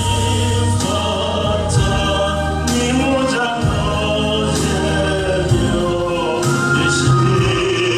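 A choir singing gospel music, sustained notes moving in steps over a held low line.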